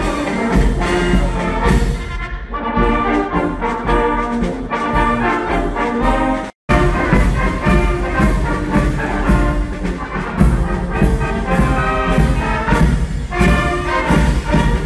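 Outdoor brass band playing: trumpets, trombones and other brass over a bass drum keeping a steady beat. The sound cuts out for an instant about halfway through.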